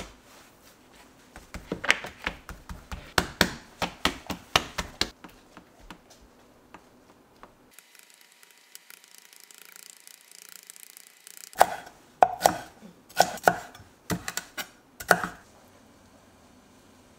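Fork tines pricking pizza dough against a metal pizza pan: two runs of quick, sharp taps, a few a second, with a short pause of faint hiss between them.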